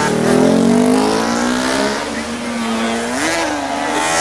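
Classic racing motorcycle engines at high revs as bikes pass: the engine note falls in pitch as one goes by, then another approaches, its note rising near the end, with a short rise and fall in pitch about three seconds in.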